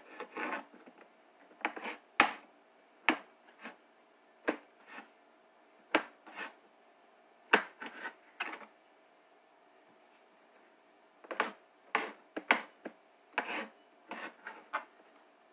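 Kitchen knife slicing through a kielbasa, each cut ending in a knock of the blade on the cutting board: irregular single strokes, with a pause of about two seconds in the middle.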